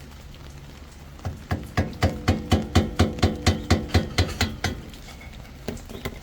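A quick run of about fourteen hammer blows on metal, about four a second, each with a short metallic ring, knocking a Ford F350's front wheel hub loose from the axle.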